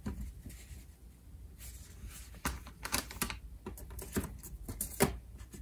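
Hands handling items in a cardboard box: scattered light taps, clicks and rustles, a few of them closer together about halfway through.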